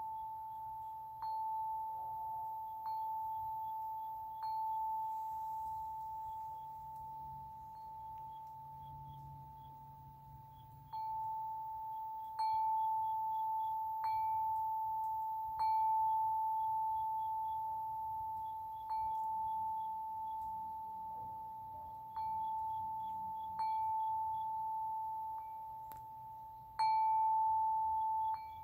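A chime ringing on one pitch, struck again about every one and a half seconds, each ring fading before the next, with a pause of a few seconds midway.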